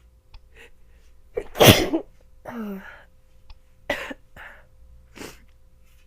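A woman with the start of a head cold sneezing once, loudly, about a second and a half in, then a short voiced sound falling in pitch. Several shorter, quieter bursts of breath follow.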